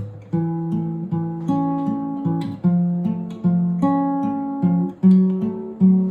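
Acoustic guitar strumming chords in a steady rhythm, about two to three strums a second, each chord ringing on into the next.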